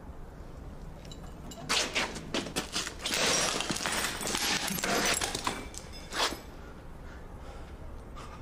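A clarinet being smashed: a run of hard cracking blows that starts about two seconds in and is densest in the middle, with one last sharp hit about six seconds in.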